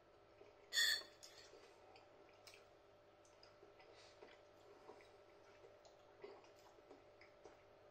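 A person eating a spoonful of curry sauce: one short noisy sound about a second in as the spoon goes into the mouth, then faint wet mouth clicks and lip smacks while chewing and tasting.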